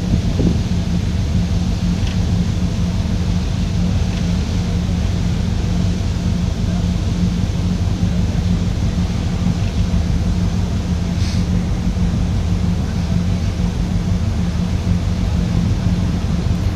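Steady low drone of a ferry's engines, with wind rumbling on the microphone.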